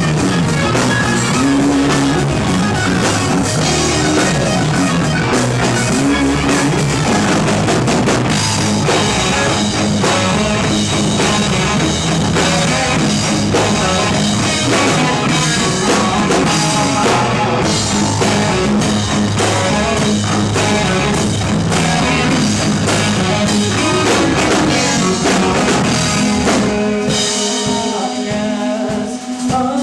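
Rock band playing live, with a drum kit, guitar and bass driving a steady rock groove. About 27 seconds in, the bass and drums drop back and the guitar carries on in a sparser passage.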